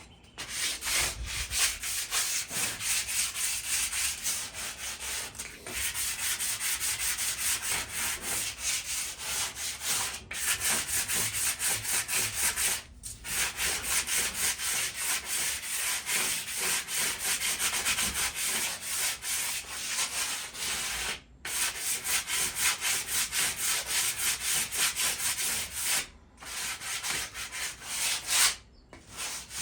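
Hand sanding of rusted metal on a patio table edge: quick back-and-forth scraping strokes, stopping briefly a few times, as surface rust is taken off to prepare the metal for paint.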